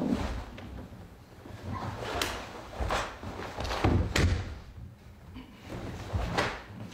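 Bare feet thudding and stamping on a wooden floor, with the snap of a cotton karate gi on fast strikes during a kata: about six sharp hits in an uneven rhythm.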